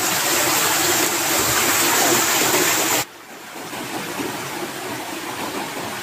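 Shallow, fast-flowing muddy stream rushing over rocks. It is loud and steady at first, drops suddenly about three seconds in, and carries on more quietly.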